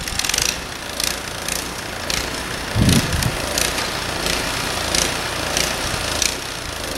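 Ariens Deluxe 30" snow blower's 306cc single-cylinder engine running under load while clearing snow, with short hissy bursts every half second to second and a low thump about three seconds in.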